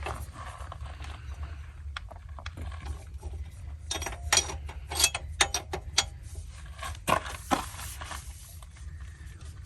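Ratchet wrench with an 18 mm socket clicking in short, irregular bunches as exhaust manifold bolts are snugged up.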